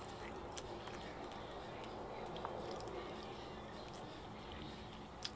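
Faint chewing and mouth sounds of someone eating a spoonful of fried rice, with a few light clicks, the clearest near the end, over a low steady background hiss.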